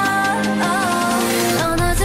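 Background pop music with a wavering melody line; a rising sweep builds near the end.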